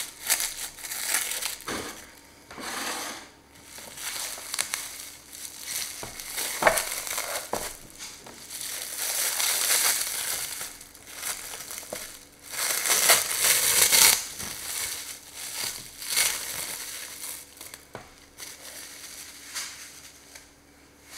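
Plastic cling film crinkling and crackling as it is peeled off a frozen ice-cream terrine, in irregular bouts, loudest around halfway and again about two-thirds in, fading near the end.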